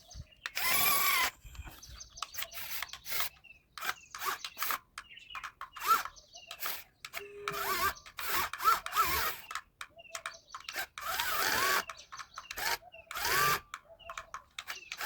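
Small electric drill run in short bursts, each with a brief whine that rises and falls, among irregular clicks and scrapes of handling parts.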